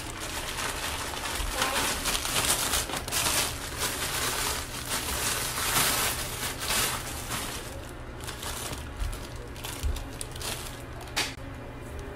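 Thin plastic bags and clear plastic wrapping crinkling and rustling as slippers are handled and pulled out of them. The rustle is dense for the first several seconds, then thins out to a few separate crackles after about eight seconds.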